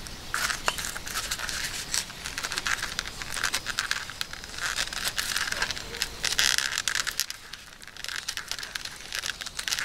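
A carving blade cutting into a wooden spoon, hollowing out the bowl: a run of short scraping cuts, with a brief lull about three-quarters of the way through. The foil-faced mat underneath crinkles as it is touched.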